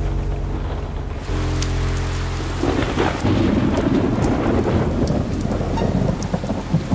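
Steady rain with thunder rumbling. A low held drone lasts for the first couple of seconds, then the rumble takes over.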